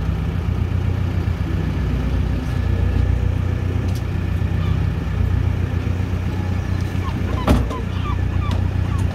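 Steady low drone of a small fishing boat's engine and hydraulic pot hauler running while octopus pots are hauled aboard. A sharp knock comes about seven and a half seconds in, followed by a few short squeaks.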